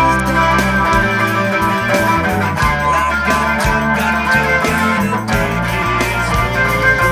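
Electric guitar, a Telecaster-style solidbody played with a pick, playing a rock song, with held low bass notes and a steady beat in the mix.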